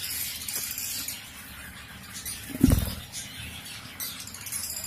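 Rustling and scraping inside a clay-pot lovebird nest lined with dry grass, with one dull thump a little past the middle.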